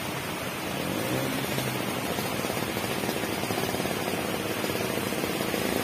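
Steady rushing of a fast, rocky mountain stream.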